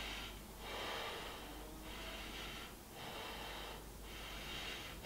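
Faint, slow breathing of a person holding a high lunge in yoga, a few breaths swelling and fading about once a second.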